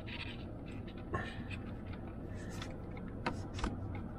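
Hands handling the wiring and adapter cable behind a car radio: scattered small scrapes and clicks of plastic connectors and cable over a steady low rumble.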